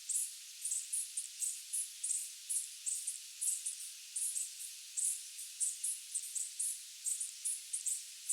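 Chorus of night insects: short high-pitched chirps, about three or four a second at uneven spacing, over a steady high hiss of more insects.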